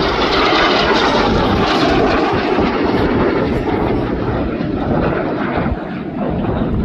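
Red Arrows BAE Hawk T1 jet engine noise as the aircraft pass. It is loudest in the first couple of seconds, then fades with its pitch slowly dropping as they move away.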